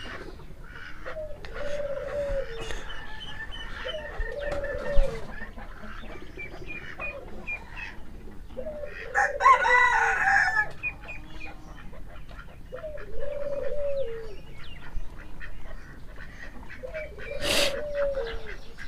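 Chickens calling: a low call rising and falling, repeated about every four seconds, with a rooster crowing at about nine seconds in. There is a sharp click near the end.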